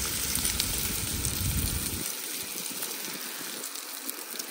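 Beaten eggs sizzling in a hot frying pan with salami, frying in the salami's own fat: a steady crackling hiss. A low rumble underneath stops about two seconds in.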